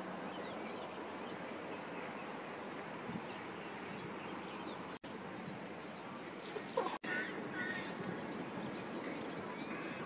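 Outdoor ambience: a steady background hiss with small birds chirping, and a louder rising call just after the sound cuts out for an instant the second time. The sound drops out briefly twice, about five and seven seconds in.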